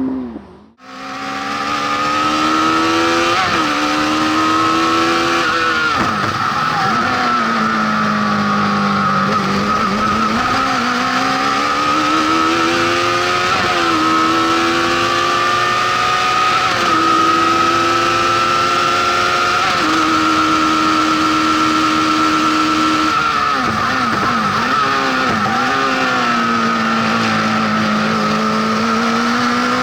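Honda CBR1100XX inline-four motorcycle engine in a lightweight Fiat 126 prototype, revving hard: its pitch climbs and falls repeatedly as it is driven up and down through the gears, with a steady high whine alongside. The sound cuts in just after a brief dropout about a second in.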